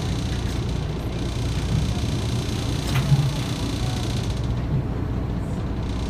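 Small boat's engine running steadily under way, a low drone with wind and water noise over it. A short sharp click about three seconds in.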